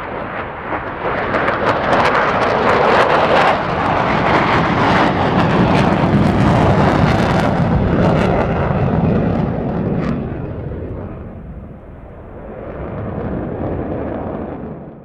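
Fighter jet passing overhead on full afterburner: a loud, crackling roar that builds over the first couple of seconds, fades away after about ten seconds, swells briefly again, and cuts off suddenly at the end.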